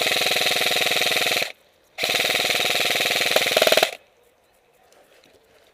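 Airsoft gun firing on full auto in two long bursts, about a second and a half then about two seconds, with a short pause between.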